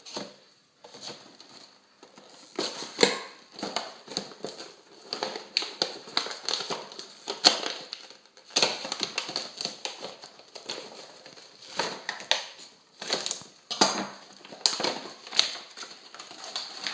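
Plastic and cardboard packaging crinkling and crackling, with irregular clicks and rustles, as an action figure is worked out of its box.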